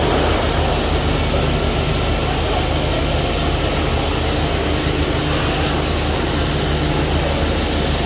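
Stainless-steel peanut butter grinding mill (colloid mill) running steadily under load while grinding peanuts: a continuous loud motor hum with a whirring rush over it.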